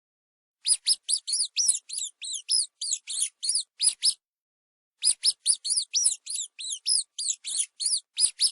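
Mouse squeaking: two runs of quick, high-pitched squeaks, about four or five a second, with a pause of about a second between them.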